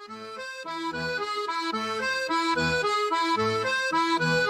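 Instrumental introduction of an AI-generated song: a melody with chords over a bass note repeating about every 0.8 s, fading in over the first second.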